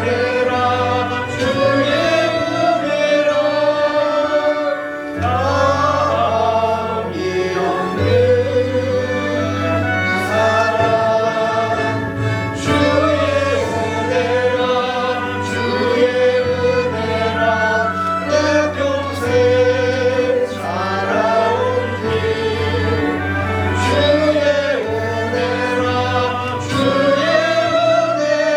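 Choir singing a Korean gospel worship song over instrumental accompaniment with a steady bass line and percussion.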